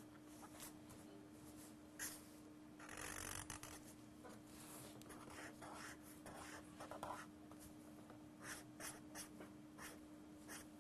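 Pen drawing outlines on paper: faint strokes, coming thick and fast from about three to seven seconds in, over a steady low hum.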